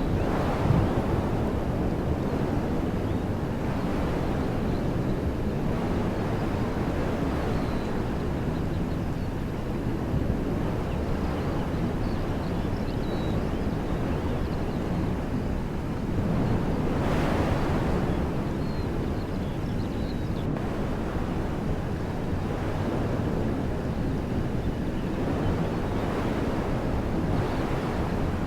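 Wind blowing through woodland trees in a steady rushing hiss, swelling into a stronger gust about two-thirds of the way through. A low rumble of wind buffeting the microphone runs underneath.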